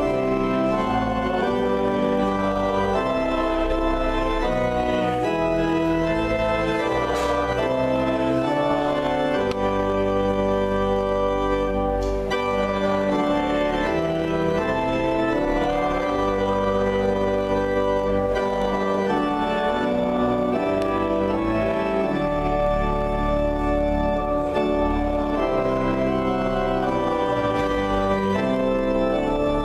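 Church organ playing slow, sustained chords that change every second or two, as offertory music during the collection of gifts.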